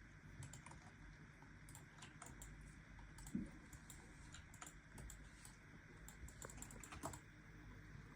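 Faint, irregular light clicks and taps over a low steady hum, with a louder knock about three and a half seconds in and another near the end.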